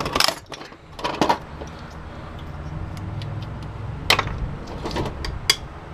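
Scattered metallic clicks and clinks, about half a dozen, as metal parts of a space heater are handled and knocked together during dismantling, with a low steady hum underneath through the middle.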